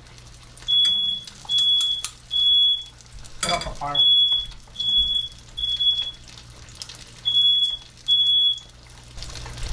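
Household smoke alarm beeping a high steady tone in groups of three, the last group stopping after two beeps. It has been set off by smoke from pan-frying fish.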